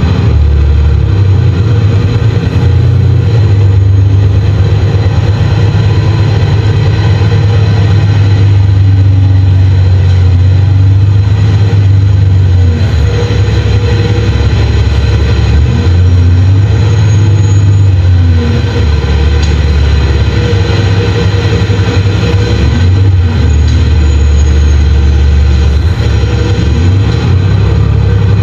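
Nova Bus LFS city bus heard from inside the passenger cabin: a loud, steady low engine and drivetrain drone that swells and eases several times as the bus speeds up and slows.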